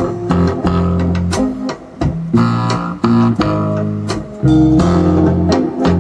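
Music: plucked string notes over a bass line, with held low notes changing every half second or so.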